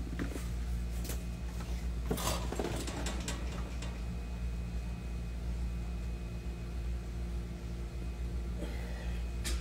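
Steady low hum in a small room, with a few faint knocks and a brief rustling noise about two seconds in, and a sharp click near the end.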